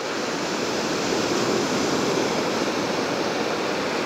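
Ocean surf breaking and washing up a sandy beach: a steady rushing noise with no distinct wave strikes.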